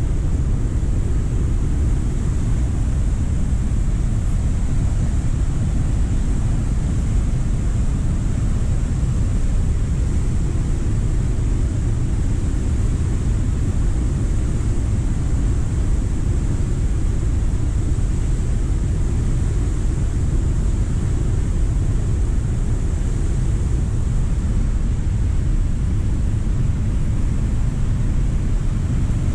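Cumberland Falls in flood, the large waterfall's heavy water crashing down as a steady, deep rumble.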